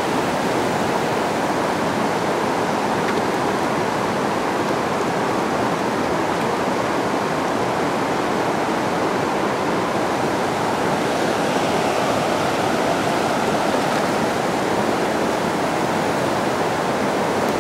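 Steady rushing of flowing river water, an even noise with no distinct splashes.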